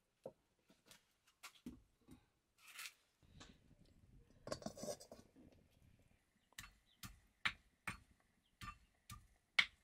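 A series of sharp, irregular clicks and clinks from kitchen utensils and dishes being handled, with a short stretch of rustling about four to five seconds in.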